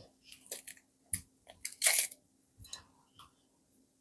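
Kitchen handling noises: a few light clicks and knocks, with one louder scrape or rustle about two seconds in, over a faint steady hum.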